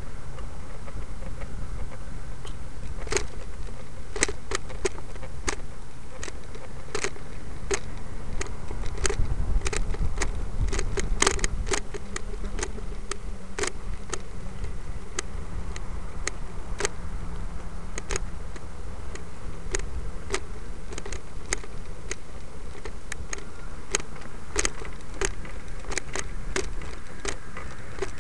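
Steady rumble of wind and rolling over pavement on a moving camera, with irregular sharp clicks and rattles coming one or two a second, thickest in the first half.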